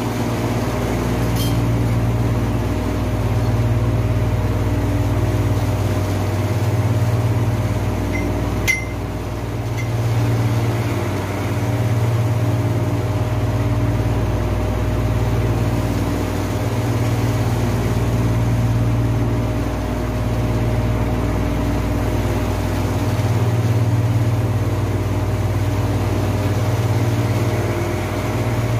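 Steady low hum of running machinery that swells and dips every few seconds, with a single sharp click about nine seconds in.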